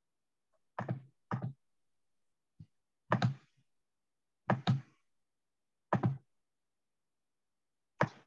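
A series of short knocks or thuds, about seven in all, spaced a second or so apart. They are heard through a video call's audio, which cuts to dead silence between them.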